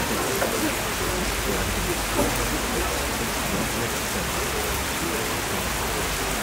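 A steady, even hiss like falling rain, with a faint knock about two seconds in.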